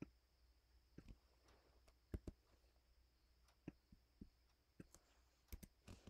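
Faint, irregular clicks of a computer mouse and keyboard, about a dozen in all, with two louder ones about two seconds in.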